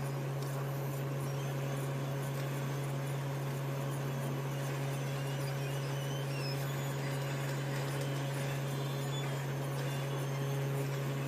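Hot air rework blower running steadily, a constant hum with an even hiss.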